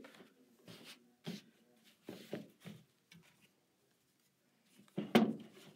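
Sheets of tearaway embroidery stabilizer and woven fabric rustling as hands smooth and handle them on a table, in a few short brushes over the first three seconds. About five seconds in comes the loudest sound, a short knock with a rustle.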